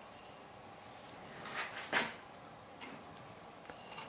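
Handling sounds of a small metal weighing tray and copper pieces: a short scrape about two seconds in, then a few faint light clicks as the copper is tipped into a ceramic crucible near the end.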